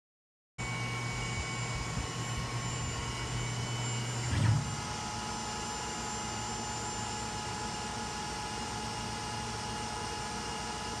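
CNC engraving machine running, a steady whine of several fixed tones over a low hum. About four seconds in there is a brief louder surge, after which the pitch of the whine changes and running goes on steadily.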